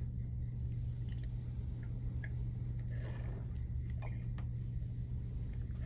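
A steady low hum, with a few faint light clicks and a brief soft hiss about three seconds in, as a probe is rinsed with a squeeze wash bottle over a glass beaker.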